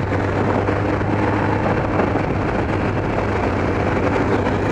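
Kawasaki ZX-12R's inline-four engine running steadily at a constant cruise, under a steady rush of wind and road noise.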